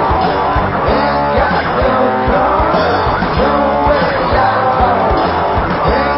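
Rock song playing: guitars over a steady drum beat.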